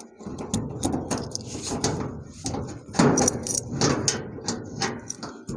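A key turning in a metal padlock and the padlock and door latch being worked loose on a metal door: a run of metallic clicks, clanks and rattles, heaviest about three and four seconds in.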